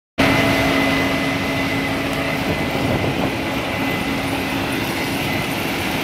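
Case IH 8230 combine running while it harvests weedy corn: a steady loud mechanical din with a thin high whine, and a lower hum that drops out partway through.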